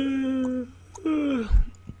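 A woman's voice making two short wordless pitched sounds: the first held level for under a second and dropping at its end, the second shorter and gliding down in pitch.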